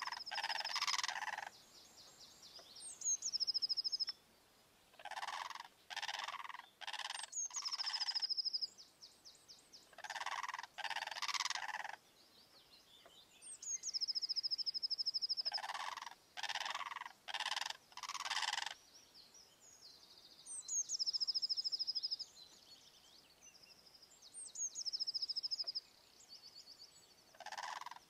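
Blue cranes calling: loud, rasping, nasal croaks in runs of two to four every few seconds. A higher, rapid trilling bird song sounds between the runs.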